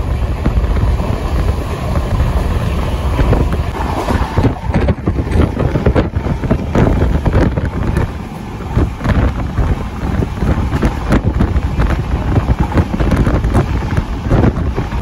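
Heavy wind buffeting the microphone at a moving train's window, over the steady rumble of the running train.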